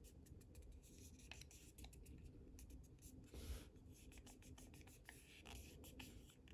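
Faint handling noise: fingertips rubbing on a tachometer dial faceplate, with many small clicks as it is pressed onto its guides.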